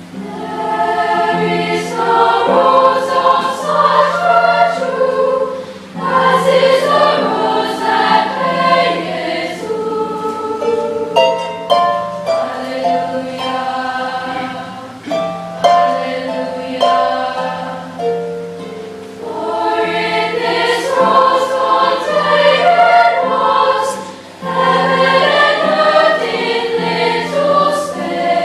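Girls' choir singing in several parts with a Lyon & Healy Style 85 concert grand pedal harp accompanying, in phrases with short breaths between them.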